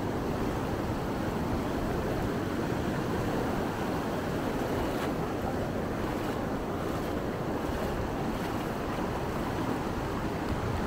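Atlantic Ocean surf washing steadily onto the beach, with wind noise on the microphone.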